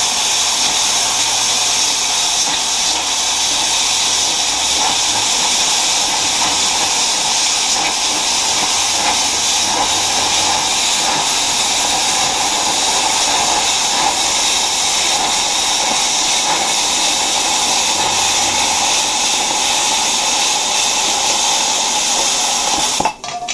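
Eastwood 40 amp plasma cutter's torch cutting through a street sign: a loud, steady hiss of the arc and its air stream that stops abruptly near the end. The air feeding it is at about 34 psi and falling, because the tank was not fully filled.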